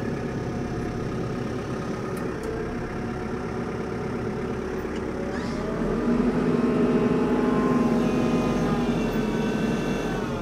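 TYM T574 tractor's diesel engine running steadily, then revving up about halfway through and holding higher and louder as the loader grapple works to drag out a log, before dropping back near the end.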